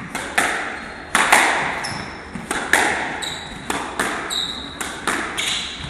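Squash rally: the ball cracks off the rackets and the court walls about twice a second, each hit echoing in the enclosed court. Short high squeaks of court shoes on the wooden floor come between the hits.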